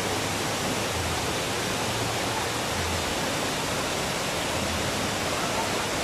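Waterfall rushing steadily over a broad, low stone ledge, a constant even roar of water.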